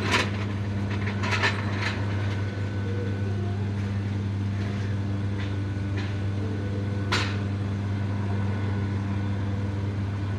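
Light metallic clicks of hand tools being handled as a socket is picked out, a few in the first two seconds and one sharper click about seven seconds in, over a steady low hum.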